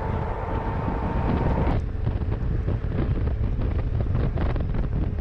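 Wind buffeting the microphone on a moving vehicle over a steady low rumble of road and engine noise. A faint steady tone fades out a little under two seconds in.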